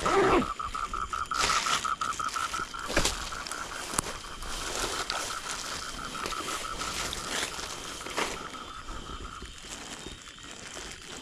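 A frog calling in a rapid, even pulsing trill that stops about nine and a half seconds in, with several short knocks and rustles over it.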